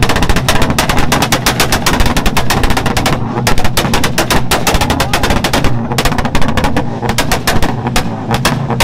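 Exhaust of a Spoon-modified Honda firing a rapid stream of sharp pops and bangs, many to the second, with brief lulls about three, six and eight seconds in.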